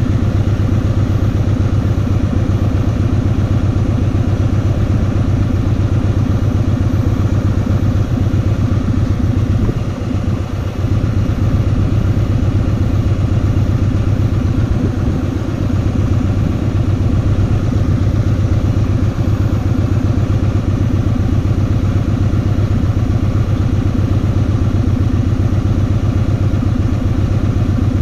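Kawasaki VN2000 V-twin engine running steadily during a ride, its level dipping briefly about ten seconds in.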